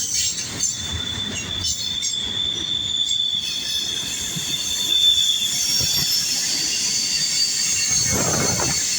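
Wheels of a Norfolk Southern mixed freight train's cars squealing against the rails over the low rumble of the cars rolling past. A single steady high squeal is joined about three and a half seconds in by several higher squeals at once.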